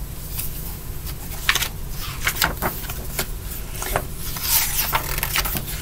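Paper pages of a picture book rustling and crinkling as the book is handled and a page is turned, in a series of short rasps.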